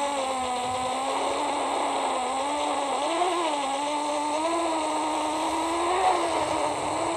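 Combined whine of the Blackout Mini H quadcopter's motors and propellers, heard through an onboard electret mic sent over the 5.8 GHz video link, its pitch wavering up and down with throttle changes, with a steady hiss behind it.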